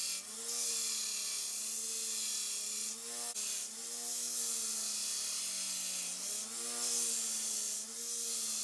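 Belt grinder running with a steel knife blank from a lawnmower blade held against the abrasive belt. The motor hum wavers and dips in pitch every few seconds, while a high hissing rasp of steel on the belt swells and fades with each grinding pass.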